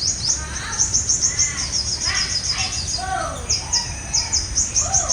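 Sunbirds calling: quick series of high, sharp chirps repeated throughout, mixed with lower whistled notes that slide downward.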